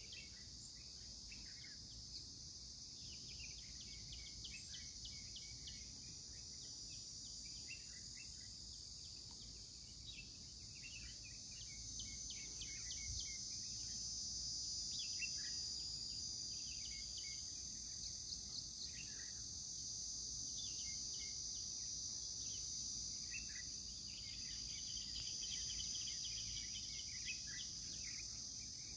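Steady high-pitched drone of an insect chorus (crickets or cicadas), with many short, high chirping calls scattered over it and a low rumble underneath.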